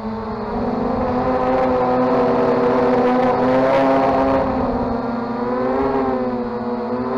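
KDS 450 radio-controlled helicopter in flight, heard up close from on board: its electric motor, gears and rotor make a steady whine of several stacked tones. It grows louder about a second in, and its pitch sags slightly and recovers as the helicopter manoeuvres near the ground.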